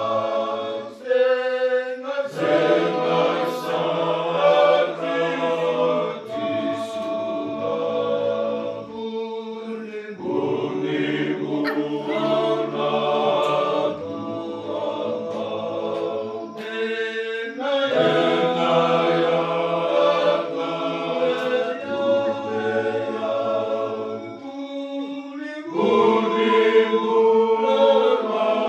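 A group of men singing together unaccompanied, several voices at once, in phrases of a few seconds with short pauses for breath between them.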